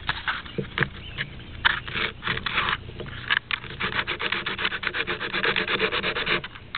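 Sandpaper scraping over a plastic Rubik's Cube corner piece as its unstickered sides are sanded smooth. The strokes come unevenly at first, then settle from about halfway into a quick, steady back-and-forth of several strokes a second, which stops shortly before the end.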